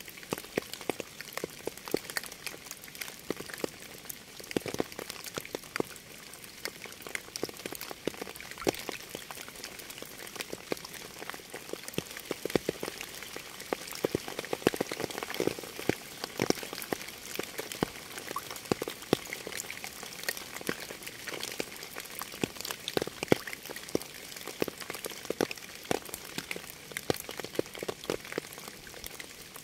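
Steady rain, many separate drops tapping sharply on a surface close by.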